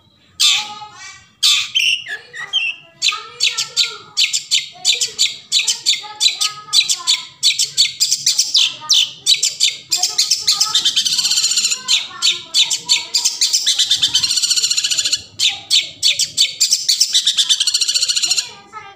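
Long-tailed shrike (cendet) singing a fast, chattering stream of short high notes. It turns into an almost unbroken rattle of notes in the middle and breaks up again toward the end.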